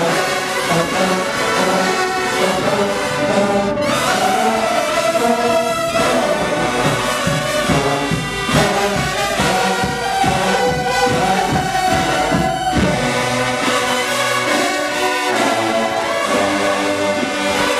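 A large marching-band brass section of sousaphones, trumpets, trombones and mellophones playing a tune together, loud and continuous.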